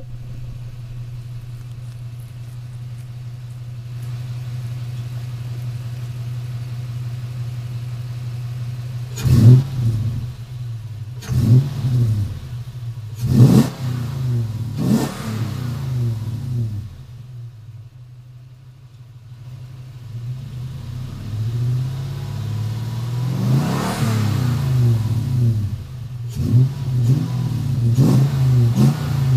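2003 Toyota Tundra TRD's 4.7-litre V8 through a TRD exhaust, idling steadily, then revved: four quick blips from about nine seconds in, a longer rev that climbs and falls back, and a run of short blips near the end.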